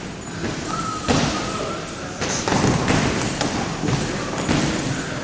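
Boxing gloves landing punches with irregular thuds during full-speed sparring, among shuffling footsteps on a hardwood floor.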